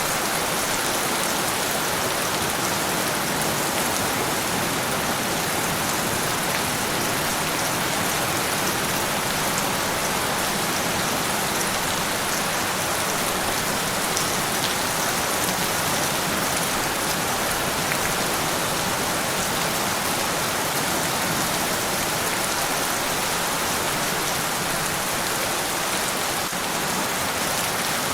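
Steady rain falling on a surface, an even hiss with faint drop patter and no thunder.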